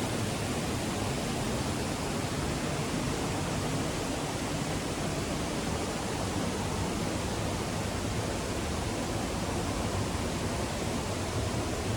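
Steady rush of running water, even and unbroken, with no distinct splashes or calls standing out.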